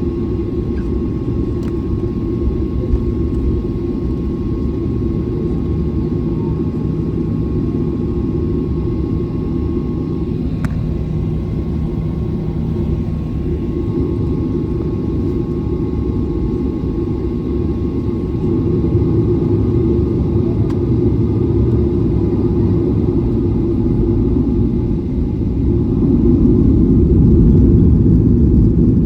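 Airliner's steady low rumble of jet engines, with a faint steady whine above it. It grows somewhat louder about two-thirds of the way through and again near the end.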